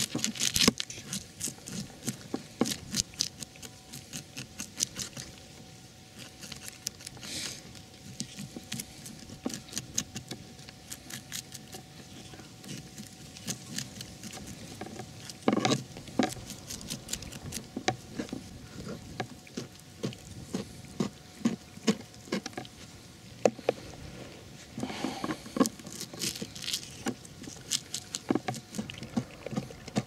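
Fish frying in hot oil in a pan, the oil crackling and spitting in irregular sharp pops, with busier stretches about halfway through and again near the end.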